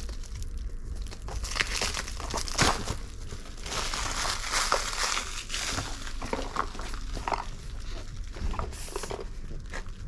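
Clear plastic wrapping crinkling and crackling as it is pulled off and crumpled from a small cardboard box, in uneven bursts of small crackles.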